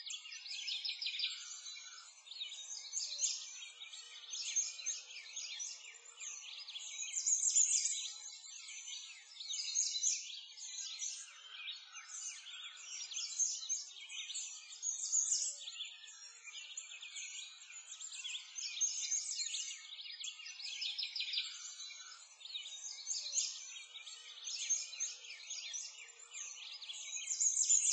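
A dense chorus of many small birds chirping without pause, all high-pitched with nothing low beneath it.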